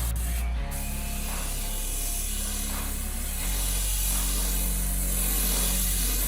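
Background music with sustained bass notes that change about half a second in and again midway, a soft pulse roughly every second and a half, and a steady hiss over it.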